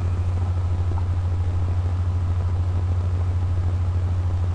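Steady low hum with an even hiss underneath, the background noise of a home desk recording, unchanging throughout.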